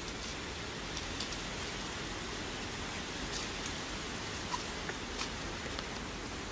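Steady outdoor background hiss with a few faint scattered clicks and ticks.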